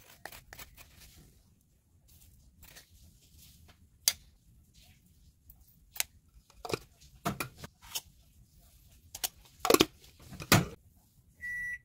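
Irregular sharp taps and clicks of spoons and seasoning containers as dry seasonings are spooned into a nonstick wok, the loudest knocks about ten seconds in. A short electronic beep sounds near the end.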